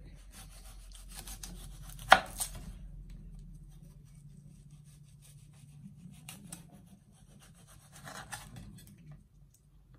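A kitchen knife cutting and scraping through the thick skin of a dragon fruit over a wooden chopping board, with one sharp knock about two seconds in and quieter cuts near six and eight seconds.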